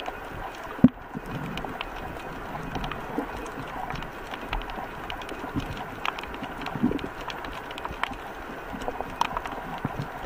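Underwater sound picked up by a waterproof compact camera while free diving on a reef: a steady muffled wash of water, crackling with many short sharp clicks, and a single loud knock about a second in.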